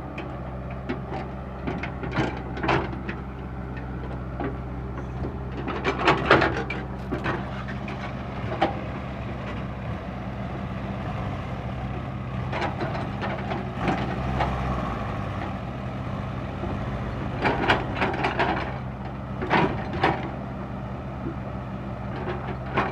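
Komatsu PC60-5 excavator's diesel engine running steadily under load, with bursts of knocking and scraping as the bucket works hard soil every few seconds.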